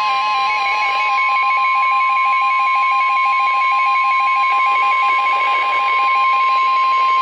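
NOAA Weather Radio warning alarm tone: a single steady 1050 Hz tone held unbroken, signalling that an emergency warning broadcast is about to follow. It comes through a hissy, poorly received radio signal.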